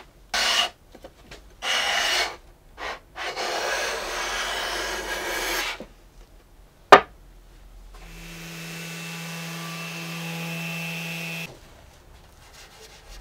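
Small hand plane shaving the edge of a gray MDF strip in several short scraping strokes, then one longer stroke of about two and a half seconds. A single sharp click, the loudest sound, comes near the middle, followed by a steady pitched hum of about three seconds and then faint rubbing.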